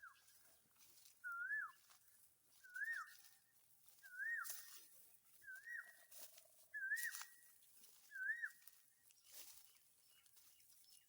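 Asian koel calling: seven short, clear whistled notes, each rising and then hooking down, repeated about every second and a half. Faint clicks and rustles run underneath.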